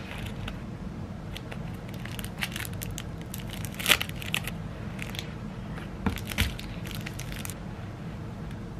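Packaging crinkling and crackling as it is handled and torn open, with a few sharper snaps about four and six seconds in, over a steady low hum.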